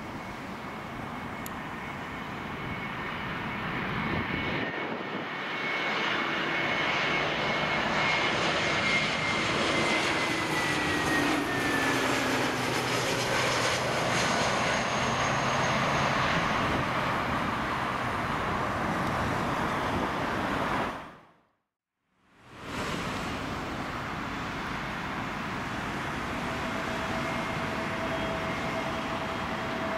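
Airbus A320neo jet airliner on final approach, its engine noise growing and passing close overhead, with the engine whine sliding down in pitch as it goes by. About two-thirds of the way through the sound cuts out briefly. A second A320neo is then heard approaching with a steady engine whine.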